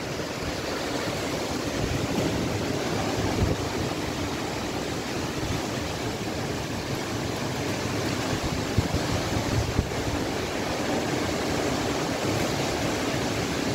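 Strong dust-storm wind rushing through trees, a steady noise with low gusts buffeting the microphone.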